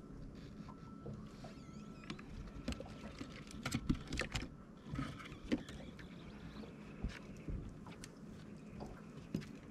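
Irregular light clicks and clatter of hands handling fishing tackle and gear in a boat's open storage compartment, bunched around the middle, over a steady low background.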